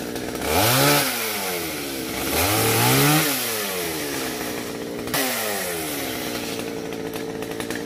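Gas chainsaw revving up and back down twice. About five seconds in it revs sharply once more, then falls away and settles into a steady idle.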